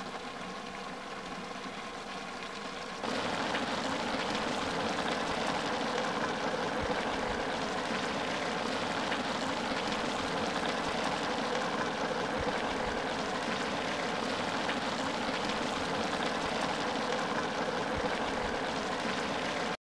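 Large pot of broth boiling hard over an open fire: a steady, dense hiss. It starts abruptly about three seconds in, after a quieter steady hum.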